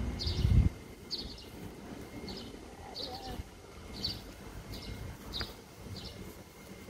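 A small bird chirping over and over, short high chirps about every half to one second. A low rumble is loudest in the first half second or so.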